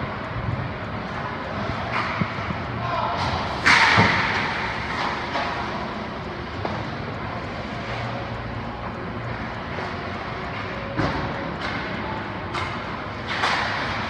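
Ice hockey play: skate blades scraping the ice and sharp knocks of puck and sticks, the loudest about four seconds in, with a few more near the end.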